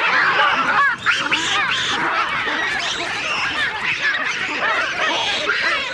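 A dense chorus of animals calling at once: many overlapping short cries, rising and falling in pitch, with a brief lull about a second in.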